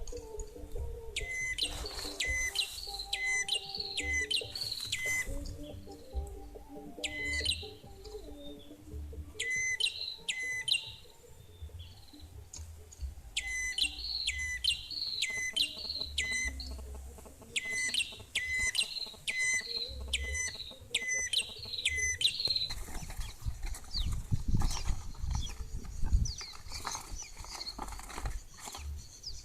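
Small songbirds calling: a sharp, chirping note repeated in quick runs of three to five, over softer, lower warbling. About three-quarters of the way through the chirps stop, and rustling and low thumps follow.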